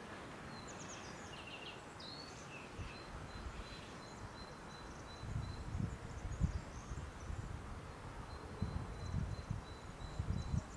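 Outdoor wind ambience: a steady rustle of grass in the breeze, with gusts buffeting low on the microphone in the second half. Small birds chirp briefly in the first couple of seconds, and a thin high note repeats about five times a second in two spells.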